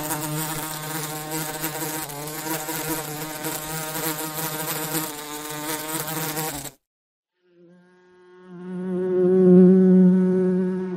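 Bee buzzing in flight, a wavering hum that stops suddenly about seven seconds in. After a short gap a second, steadier buzz fades in, swells loud and cuts off near the end.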